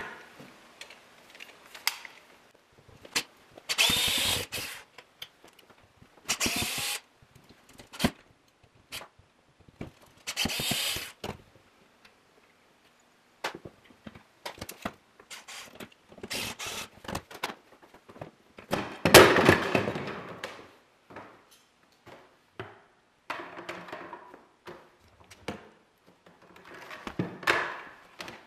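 Electric drill-driver working screws on stair rail brackets, running in about half a dozen short bursts, the longest and loudest near the middle. Between the bursts come knocks and clicks of the rail and metal brackets being handled.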